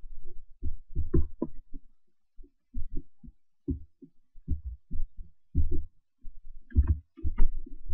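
A run of irregular low thumps, about two or three a second, some with a light click on top: desk and mouse handling noise picked up by the microphone during computer use.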